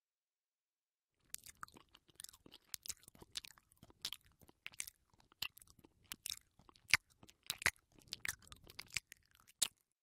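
Gum being chewed close to the microphone: irregular wet smacks and clicks of the mouth, starting about a second in and continuing at a few per second.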